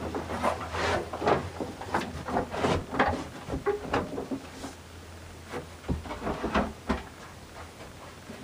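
Handling noise of a person moving about and shifting gear among keyboard stands and guitars: irregular knocks, scuffs and rustles, busiest in the first four seconds and again around six to seven seconds in.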